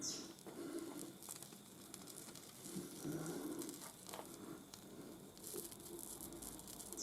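Faint crackling and sizzling of soldering flux on a pushed-together metal joint as it is heated for soldering.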